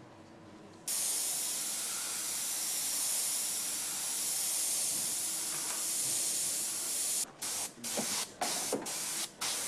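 Airbrush hissing with compressed air: a steady hiss starts about a second in, then breaks into a run of short spurts near the end.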